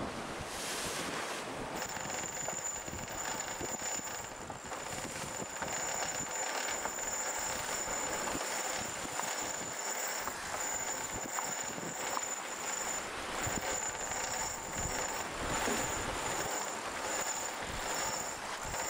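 Wind and rushing water on the deck of an IMOCA 60 racing yacht under sail, with a thin steady high-pitched whine over it from about two seconds in.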